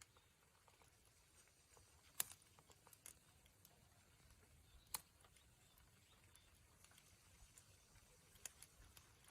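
Oysters grilling over a fire: faint, sparse crackles and pops, with two sharper pops about two and five seconds in.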